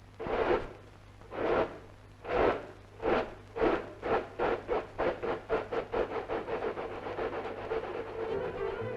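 Steam locomotive pulling away: its exhaust chuffs start about a second apart and quicken steadily into a rapid beat.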